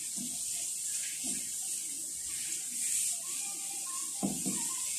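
Hands rubbing and turning a marinated pork leg in a stainless steel bowl: soft wet squishing of meat in sauce over a steady hiss, with a small knock about four seconds in.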